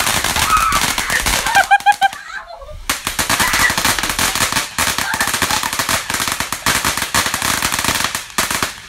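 Ground firework fountain spraying sparks and crackling with dense, rapid pops. The crackle breaks off for under a second about two seconds in, then carries on.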